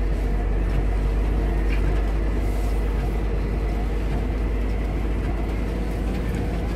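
Vehicle engine and tyres on a wet road, heard from inside the cab as a steady low rumble.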